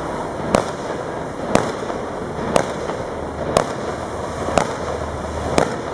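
Fireworks fired in sequence: a steady hiss and crackle of burning pyrotechnics, with a sharp bang about once a second.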